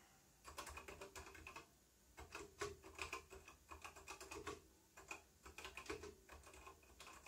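Quiet typing on a computer keyboard: a quick, irregular run of key clicks.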